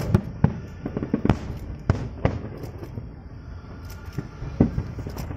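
Aerial fireworks bursting in quick, irregular succession: sharp bangs, a few of them much louder than the rest, over a steady low rumble.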